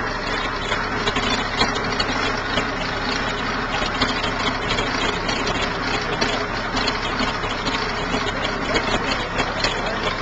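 Porsche 917's air-cooled flat-twelve racing engine running steadily just after firing up, on its first run in about 30 years.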